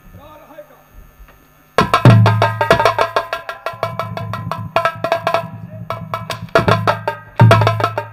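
Nautanki accompaniment striking up about two seconds in: fast, sharp stick strokes on nagada drums over a steady low tone, loud and continuous.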